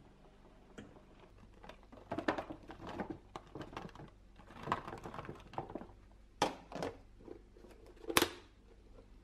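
Cherry tomatoes tumbling and knocking into a plastic food container, with crinkling plastic packaging. Then a few sharp plastic clicks as the lid's snap latches are pressed shut, the loudest near the end.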